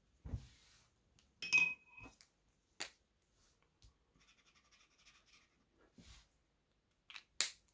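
Scattered light clicks and taps as an acrylic marker and its cap are handled on a wooden table, one with a short clinking ring about a second and a half in.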